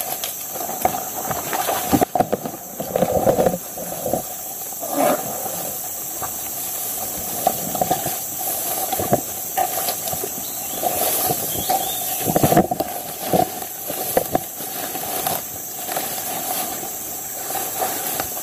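Steady high-pitched drone of tropical forest insects, with irregular footsteps through shallow stream water and swishing through grass and undergrowth.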